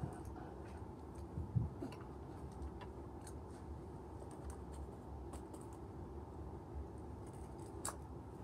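Light clicks and taps of a toy garbage truck and toy trash cans being handled, with a soft thump about a second and a half in and a sharper click near the end.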